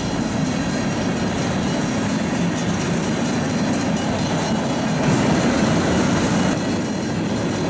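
Freight train of tank cars rolling through a grade crossing: a steady rumble of steel wheels on the rails.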